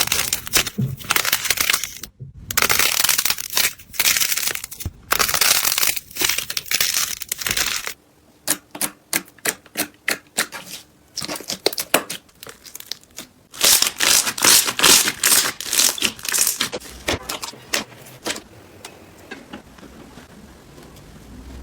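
Slime, likely crunchy slime, being squeezed and pressed by hand, giving off dense crackling and popping, with stretches of scattered sharp clicks and pops.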